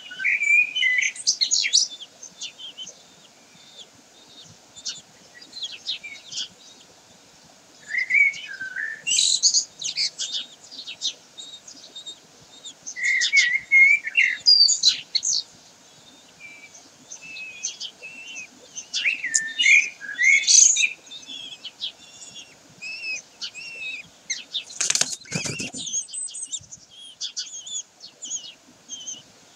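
Common kestrels in a nest box: bouts of high, thin chirping calls every few seconds. About 25 seconds in comes a loud flurry of wingbeats and scraping as the adult female kestrel flies out of the box.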